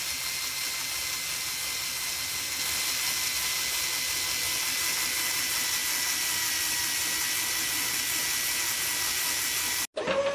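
Small DC motor turning a miniature auger as it drills into sand, a steady hissing whine. It cuts off abruptly just before the end, replaced by a different steady hum.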